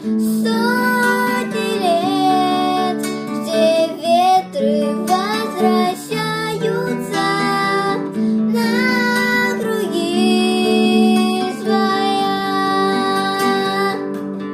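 Classical guitar accompaniment with a high voice singing the melody over it, the sung notes wavering with vibrato and gliding between pitches.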